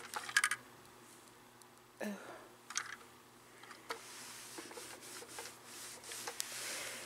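Clothes iron handled and pressed over a small spray-starched fabric swatch on a padded ironing surface. A few light rustles and clicks, a soft knock about two seconds in, then a faint steady hiss as the iron is held and moved on the fabric.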